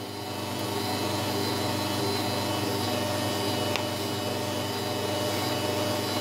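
Electric kitchen stand mixer running steadily, beating a runny cake batter in its plastic bowl, with one light click about four seconds in.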